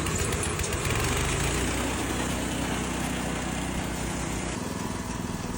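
Engine-driven rice threshing machine running steadily with a dense, even mechanical noise.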